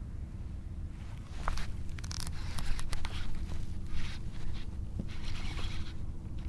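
Baitcasting rod and reel in use: a cast, then the reel cranked in, with irregular scraping and rustling from line, reel and clothing over a steady low rumble and faint hum.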